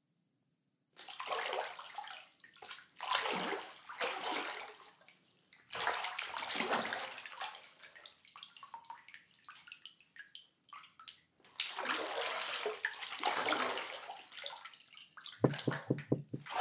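Water in a bathtub sloshing and splashing in several swelling surges, starting about a second in. Near the end come a few quick knocks.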